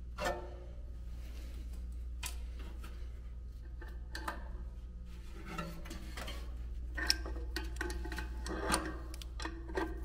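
Scattered metallic clicks and taps of a hand tool working the set screw on a blower wheel's hub, over a steady low hum. The taps come thickest a few seconds from the end.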